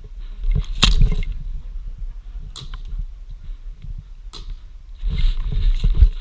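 Airsoft pistol shots: three sharp single shots about two seconds apart, over low rumble and handling noise on a body-worn camera.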